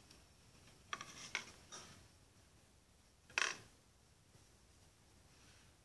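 A few light clicks and knocks of something being handled, with one louder knock about three and a half seconds in.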